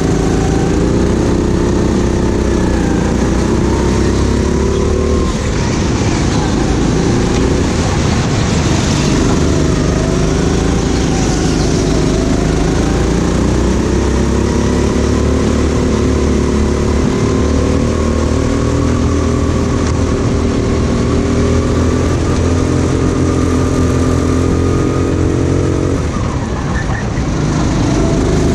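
Go-kart engine revving up and down as the kart drives the corners of a race, with a brief lift-off near the end before it picks up again.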